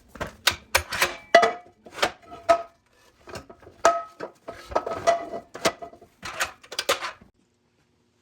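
Cast iron skillet being handled on a hard surface: a string of irregular metal clanks and knocks, some with a brief ring.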